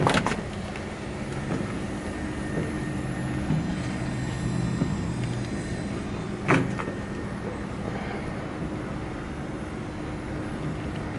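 Climbing down out of an articulated haul truck's cab: a clack at the start and a sharp knock about six and a half seconds in, with a few lighter taps, over a steady low mechanical hum.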